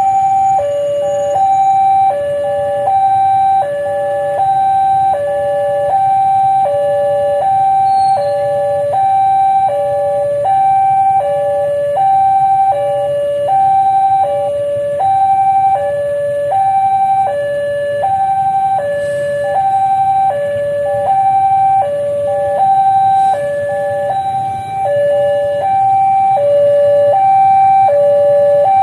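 Railway level-crossing warning alarm sounding a steady two-tone high-low pattern, about one full cycle every one and a half seconds, as the crossing stands closed for an approaching train. A low rumble runs underneath.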